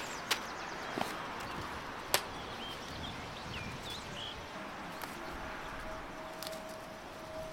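A few sharp clicks over a quiet outdoor background, the loudest about two seconds in, with faint bird chirps after it. A faint steady tone comes in about halfway through.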